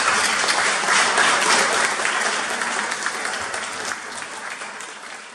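A small audience applauding after a performance, the clapping slowly dying away toward the end.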